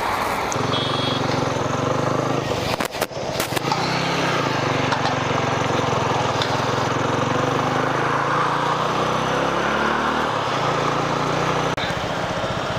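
TVS Apache single-cylinder motorcycle engine running under way, its pitch shifting a little with speed, under a steady rush of wind and road noise. A couple of sharp knocks come about three seconds in.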